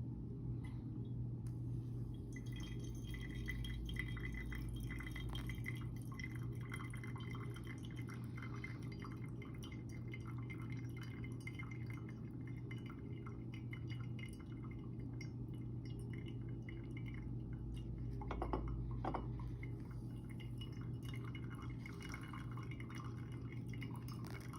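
Coffee dripping through a ceramic pour-over dripper into its carafe: many small irregular drips over a steady low hum.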